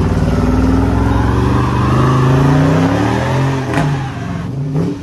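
Car engine revving hard at high rpm while the rear wheels spin in a burnout. The engine pitch climbs over the first couple of seconds, then drops and dips briefly near the end.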